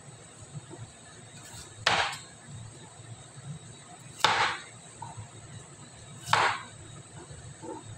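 Cleaver chopping through carrot onto a plastic cutting board: three sharp chops about two seconds apart.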